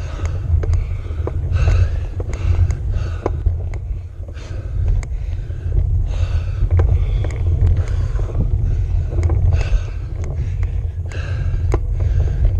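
A cyclist breathing hard and fast, a breath about every second, labouring up a steep road climb. Under it a steady low rumble of wind and road vibration on the handlebar-mounted microphone, with a few light rattling clicks.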